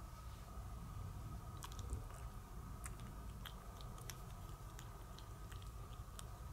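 Persian kitten crunching dry kibble: faint, irregular crunches of chewing that begin about one and a half seconds in.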